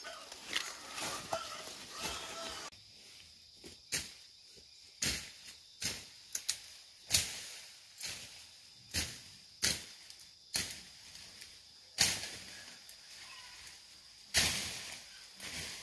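Weeds and grass being pulled and cut among pineapple plants: a series of short rustling swishes, roughly one a second.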